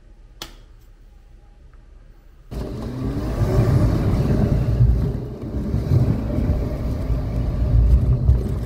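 Car driving, heard from inside the cabin: a loud, low engine and road rumble that starts abruptly about two and a half seconds in and rises in pitch briefly soon after. Before it there is only a quiet stretch with a single click.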